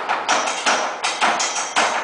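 Stomp-style percussion on everyday objects such as buckets and barrels, played in a steady rhythm of sharp hits: about two to three loud strikes a second with lighter ones between, and a faint high ringing tone in the second half.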